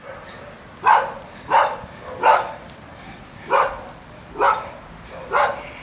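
A dog barking: six short barks at roughly one-second intervals.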